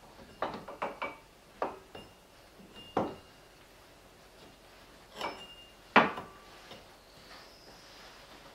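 Metal clinks and taps of a hand wrench working the bolts on a Chevy Suburban's front CV axle as they are snugged up. About eight separate sharp clinks, some ringing briefly, with the loudest about six seconds in.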